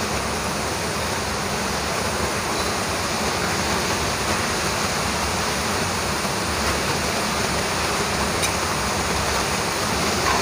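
Heavy rain falling: a steady, even rushing hiss.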